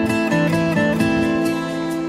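Background music led by an acoustic guitar playing plucked, held notes.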